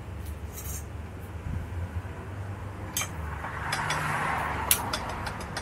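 Handling noise from fitting a motorcycle crash cage: a few sharp metallic clicks and a rustle between about three and five seconds in, over a low steady rumble.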